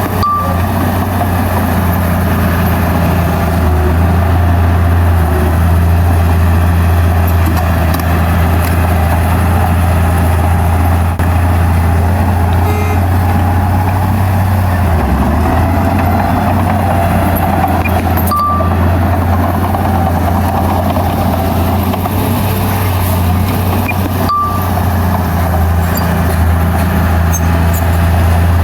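Heavy diesel engine of earth-moving machinery, a bulldozer or dump truck, running with a strong steady low drone that dips briefly about halfway through. A short high beep with a click sounds three times: once at the start, then twice later.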